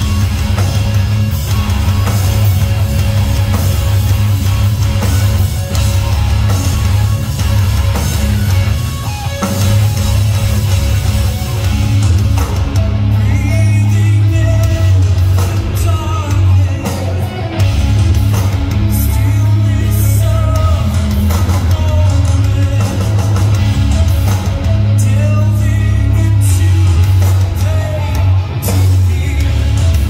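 Live rock band playing a song: loud electric guitars, bass and drums, with singing coming in about twelve seconds in.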